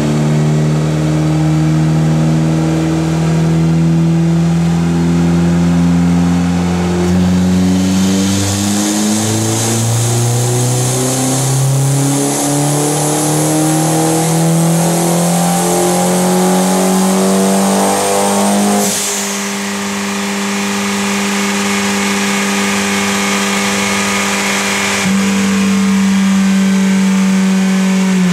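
Turbocharged 2015 Polaris Slingshot 2.4-litre four-cylinder engine on a chassis dyno: a steady run, then a full-throttle dyno pull rising in pitch for about twelve seconds that cuts off suddenly with a short hiss, then a steady lower run.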